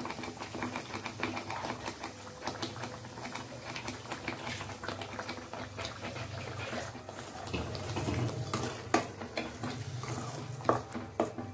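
Chilli paste cooking in oil in a steel kadai, a quick patter of small pops and spits over a steady low hum, with a steel ladle knocking and scraping against the pan as it stirs near the end.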